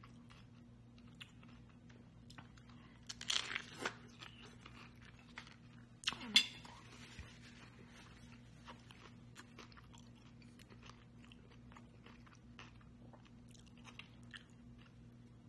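A person chewing a crunchy fried corn tostada topped with fish ceviche. There is a louder crunch about three seconds in and another about six seconds in, then quieter crackling chewing.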